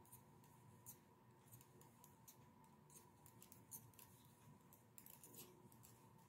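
Faint, irregular light clicking of metal circular knitting needles as stitches are knit across a row, over near-silent room tone.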